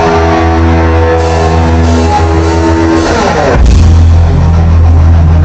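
Heavy metal band playing live, loud and distorted: a held guitar chord, a slide down in pitch about three seconds in, then the full band coming in with a heavy low riff.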